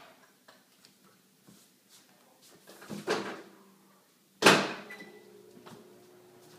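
A kitchen appliance door is handled: a clatter about three seconds in, then a sharp thud of the door shutting about four and a half seconds in. An appliance hum runs steadily after the shut.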